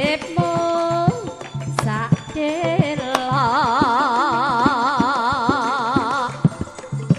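Javanese sinden (female gamelan singer) singing through a microphone, with a long wavering held note in the middle, over hand-drum strokes and short percussive strikes of a karawitan ensemble.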